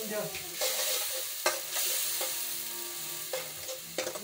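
Gravy sizzling in a steel kadai over a gas flame while a steel spoon stirs it, with a few sharp clicks of the spoon against the pan.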